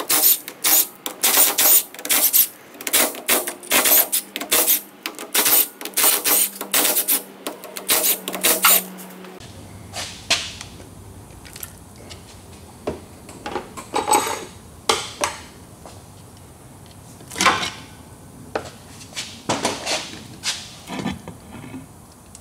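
A cordless power tool running in short bursts as it backs the bolts out of a truck's rear differential cover. After about nine seconds it gives way to scattered metal clanks and knocks as the cover is worked loose by hand.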